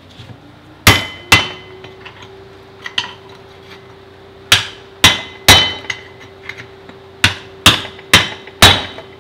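Hammer striking an all-metal screwdriver set against a Toyota Supra differential to drive the axles out: about nine sharp metallic whacks, mostly in pairs and quick runs, with a faint steady tone underneath.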